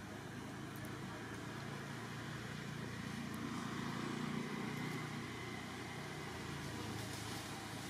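Steady low background rumble, swelling slightly about halfway through.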